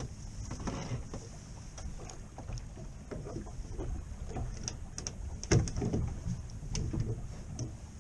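Wind and sea noise aboard a small fishing boat, a steady low rumble, with scattered knocks and clatters of gear on deck; the loudest knocks come about five and a half seconds in.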